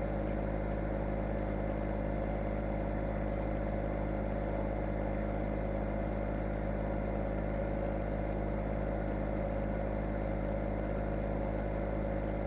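An engine running steadily at a constant idle, a low even hum with no change in speed.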